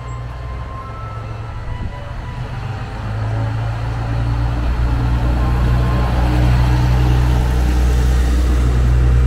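Wakasa Railway 'Showa' diesel railcar pulling away from the platform: its diesel engine runs with a deep, steady hum that gets louder about three seconds in as it throttles up.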